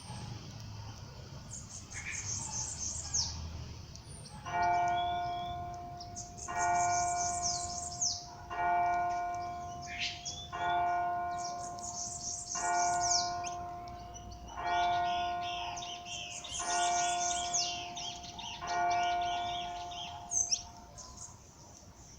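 A bell tolls eight slow strokes about two seconds apart, each ringing and fading, while small birds chirp high-pitched calls over it.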